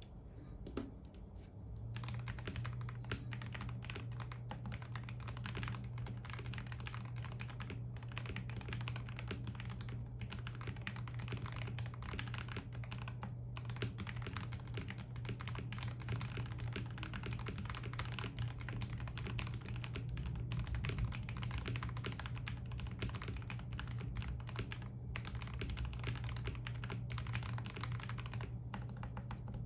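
Continuous typing on a DKT66 65% mechanical keyboard with Gateron Milky Yellow Pro linear switches lubed with Krytox 205g0, a tape mod and a silicone mod, and Aifei doubleshot ABS keycaps. It begins about a second and a half in as a dense, unbroken stream of keystrokes.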